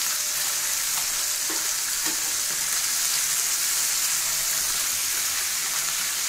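Small whole fish frying in hot oil in a pan: a steady sizzle, with light scrapes of a metal spatula as the fish are turned over.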